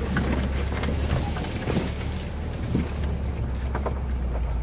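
UAZ off-road vehicle's engine running steadily at low revs, a low drone heard from inside the cab. Scattered knocks and scrapes sound over it as the vehicle crawls through brush.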